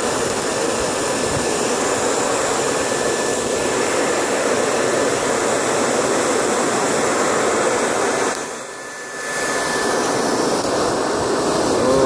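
Hair dryer on its high setting blowing air into a charcoal forge: a steady rush of air with a thin high whine. The rush drops away briefly about eight and a half seconds in, then comes back up.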